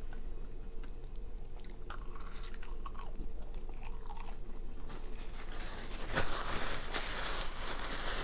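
A person chewing and biting into food, most likely fries, with small crunching clicks that grow denser and louder over the last three seconds.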